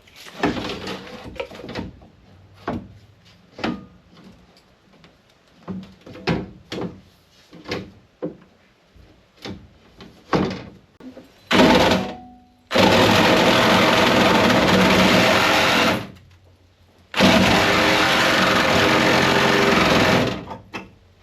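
A series of scattered knocks and clanks on car-door metal, then a power cutting tool runs in two loud steady bursts of about three seconds each, cutting metal in a car door.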